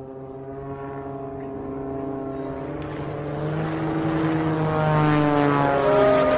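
Propeller airplane engine droning in flight, growing louder as it approaches, its pitch sliding slowly down as it passes.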